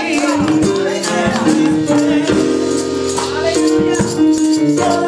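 Live gospel praise music: held keyboard chords with a shaker-type hand percussion keeping a steady beat, and singers' voices over the top.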